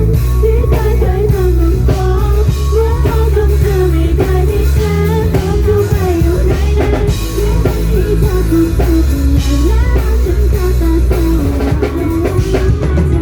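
A female voice singing a pop-rock song over drums, guitar and a heavy bass line.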